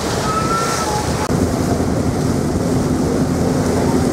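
Steady, loud rumble of a ferry's engines and the rushing of water along the hull, heard from on board. A little over a second in the sound shifts and a steady low hum sets in.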